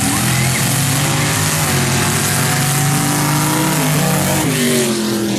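Dirt drag race cars launching and accelerating hard at full throttle. Engine pitch climbs, then drops back and climbs again at each gear shift, about three times.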